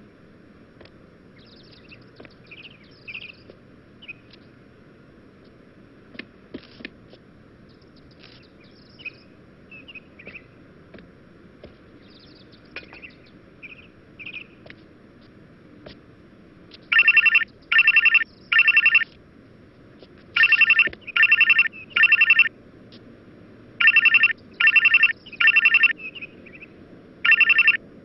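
A mobile phone ringtone imitating a trilling telephone ring. It rings in short loud bursts, about three to a group, starting just over halfway through. Before that there are only faint chirps and small clicks.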